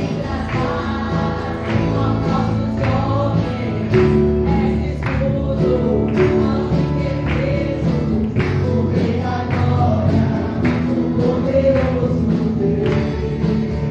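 Gospel worship song: a group of voices singing together over a band, with a steady beat of about one drum stroke a second.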